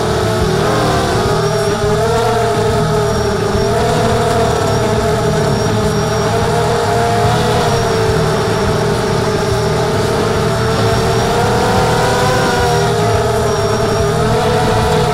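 250-size FPV racing quadcopter's brushless motors and propellers whining, heard from its onboard camera. The pitch rises and falls with the throttle, with a lift in pitch about half a second in.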